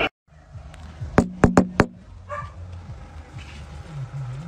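Four quick, sharp knocks on a wooden front door about a second in, followed by a low, wavering sound from a dog behind the door near the end.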